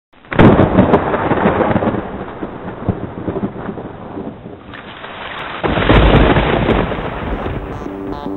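Two rolls of thunder. The first breaks sharply just after the start and slowly dies away; the second, deeper and louder, comes about two-thirds of the way through.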